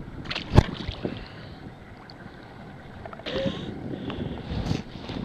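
Wind on the microphone over rippled water, with a sharp knock about half a second in, a short hiss a little after three seconds, and a duller thump near the end.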